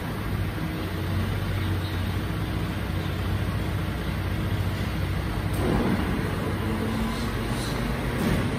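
Mercedes-Benz Arocs rear-loader garbage truck's diesel engine running steadily while the truck stands still, with a short louder noise about two-thirds of the way in.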